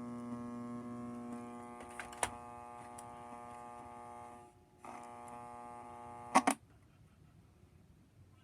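Vintage alarm clock's speaker giving out a steady electric buzz, with a click about two seconds in. The buzz drops out briefly a little past halfway, returns, then stops right after two sharp clicks near the end.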